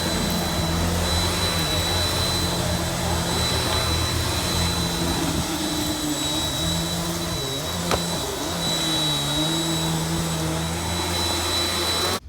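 Vacuum cleaner running steadily with a high motor whine, its pitch dipping and wavering now and then as it is worked, with a single click about eight seconds in. It switches off suddenly near the end.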